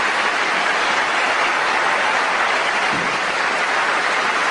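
Large tennis stadium crowd applauding steadily: a dense, even clatter of many hands clapping.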